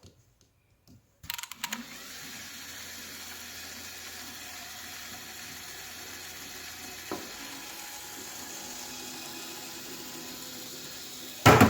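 LEGO Technic electric motor driving a gear train, running with a steady whir that starts with a few clicks about a second in, lifting the vehicle up and down. A loud click comes near the end, and the whir then dies away.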